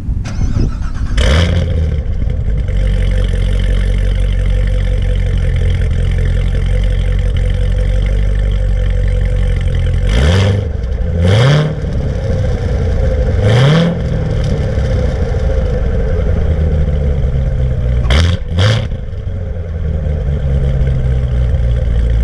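C7 Corvette Z06's supercharged 6.2 L LT4 V8 fitted with a Borla X-pipe that deletes the secondary catalytic converters, started up about a second in and idling. Revved three times around the middle and given two quick blips near the end, falling back to idle each time.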